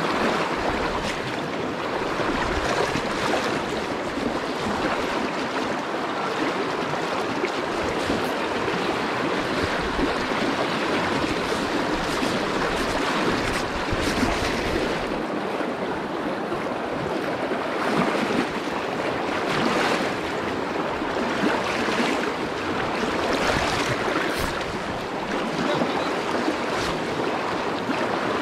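Fast-flowing river rushing over rocks close by, a steady, loud wash of water, with irregular low rumbles of wind on the microphone.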